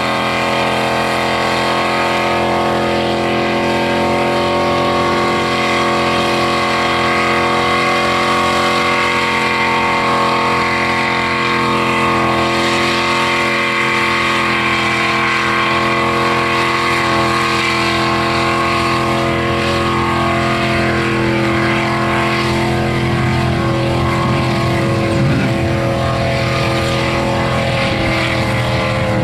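Holden VP Commodore's 5.0-litre V8 held at steady high revs through a long burnout, its rear tyres spinning in a cloud of smoke. The engine note stays almost constant and sags slightly near the end.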